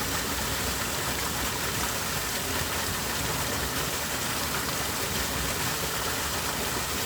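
A small mountain stream running over rocks: a steady, even rushing and splashing of water.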